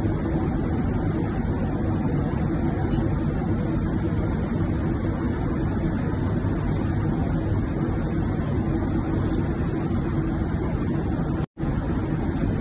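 Airliner cabin noise in flight: the steady, even rumble and hiss of the jet engines and airflow, cutting out for a moment about eleven and a half seconds in.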